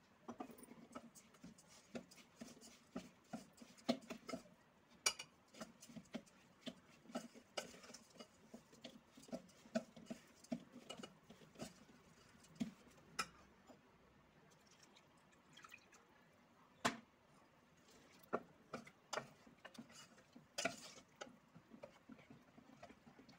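Metal spoon stirring barley grits and gram flour in a stainless steel bowl as buttermilk is worked in, with faint, irregular clinks and scrapes against the bowl. The stirring eases off briefly a little past the middle, then picks up again.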